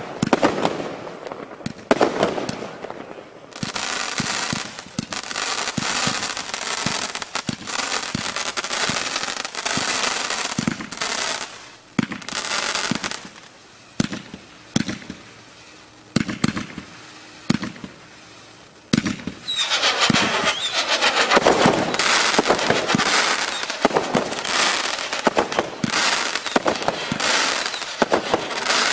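Wolff Planet Explosion, a 101-shot firework cake, firing: a rapid string of launch reports and bursts, with long stretches of dense crackling. For several seconds in the middle it thins to separate shots, then builds again.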